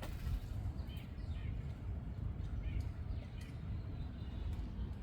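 Short, scattered bird chirps over a steady low rumble of outdoor background noise.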